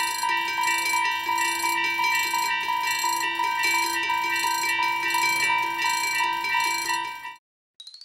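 Japanese railroad crossing warning bell ringing its fast, even 'kan-kan' alarm, sped up. It cuts off abruptly about seven seconds in, followed by a brief high chirp near the end.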